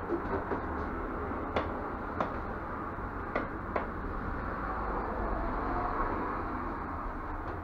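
Steady low background rumble with four light, sharp knocks spread over the first four seconds, in the small wooden room of a barrel sauna.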